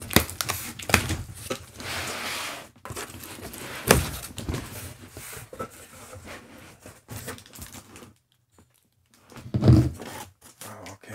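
A cardboard shipping box being opened: a box cutter slicing and tearing the packing tape, then the flaps pulled open with scraping and rustling. A sharp knock about four seconds in, and a louder dull thump near the end.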